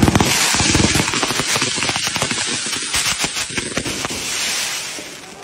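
Ground fountain firework spraying sparks, with a loud hiss and dense rapid crackling that thin out and fade near the end.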